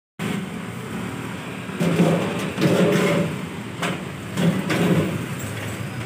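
Sheet-metal outer cover of a microwave oven being handled and slid back onto the chassis during reassembly: metal scraping with a few sharp knocks.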